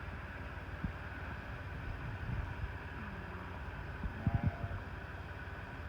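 Hay bale elevator running with a steady low mechanical rumble, with a few short knocks about a second in and again around four seconds in.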